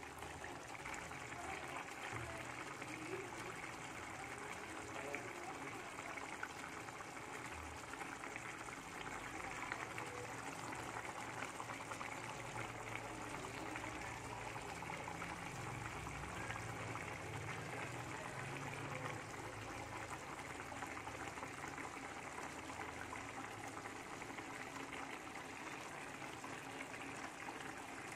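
Chicken pieces, grated coconut and spices simmering in a pan of oily yellow broth: a steady bubbling of the liquid.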